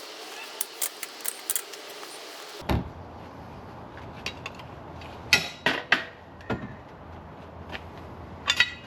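Short hiss with small crackles, then several sharp metal clanks and clatters as steel pieces are handled and set down, the loudest a little after five seconds and near the end.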